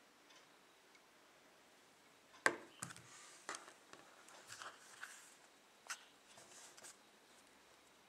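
Handling noise from a Nokia Asha 302 phone on a wooden table. After near silence, a sharp click comes about two and a half seconds in, followed by scattered faint taps and rustles as the phone is worked and turned over.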